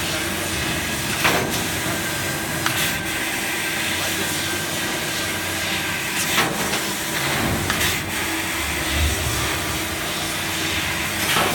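MetalTec 1530 fiber laser cutting machine at work: a steady hiss, broken by a few short sharp clicks at uneven intervals.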